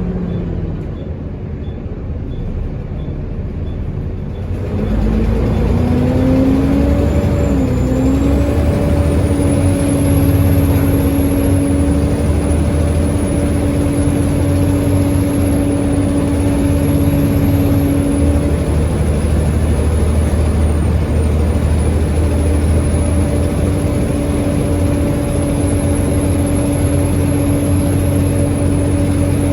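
Volvo B7TL bus's engine and ZF automatic gearbox: the engine note falls off at first, then about four to five seconds in the bus pulls away, the note rising through a gear change. A high turbo whine climbs in and holds, wavering, to the end: the loud, constant 'hoover' of this clapped-out bus's turbo.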